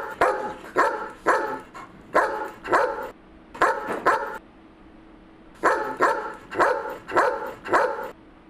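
A dog barking in quick runs of sharp barks, about two a second, with a pause of a little over a second past the middle before the barking starts again.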